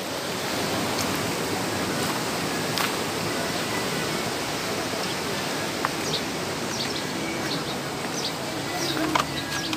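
Steady rush of water pouring through a concrete irrigation canal and culvert. In the second half, short high bird chirps sound over it.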